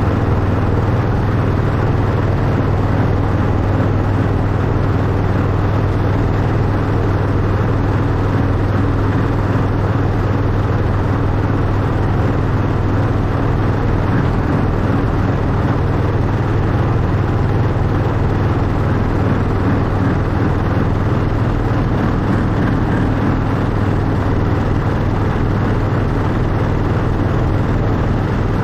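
Miniature railway locomotive, a replica Class 91, running steadily along the track: a constant low drone with rumbling noise.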